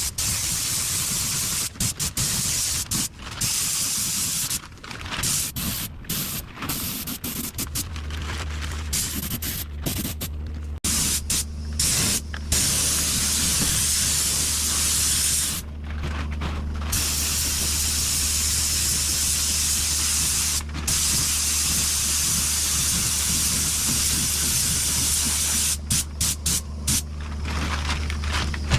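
Paint spray gun hissing as paint is sprayed, starting and stopping abruptly many times. A steady low hum runs underneath from about eight seconds in.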